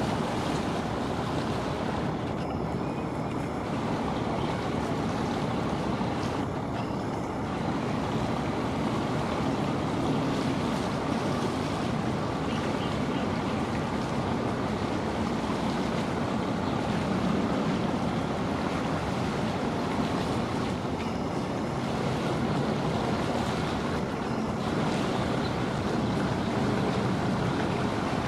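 Steady rush of wind and water, with wind buffeting the microphone and no distinct engine note.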